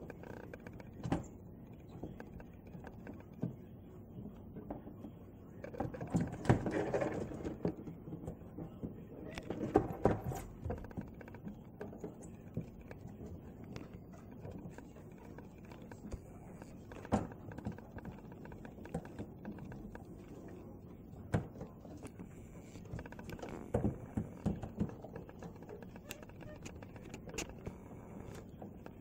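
Crows tapping, pecking and scratching on a skylight's glass and the roof around it: irregular sharp taps with a few louder flurries of taps and scraping.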